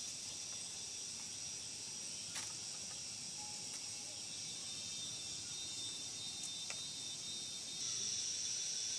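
Steady high-pitched chorus of forest insects, growing louder near the end, with a couple of faint knocks as bamboo poles are handled.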